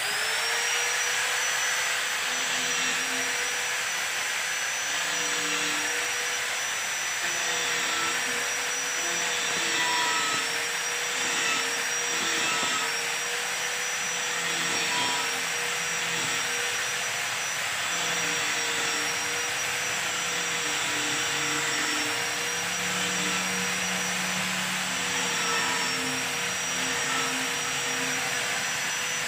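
Handheld electric power tool, most likely an angle grinder, switched on and spinning up, then running steadily with a hiss and a high whine that wavers slightly in pitch as it works on the steel frame.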